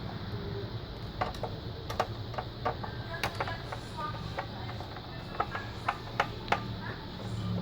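Irregular small clicks and taps of a screwdriver and loose metal screws as the screws holding the hard drive are taken out of an ASUS V221 all-in-one PC, some clicks ringing briefly.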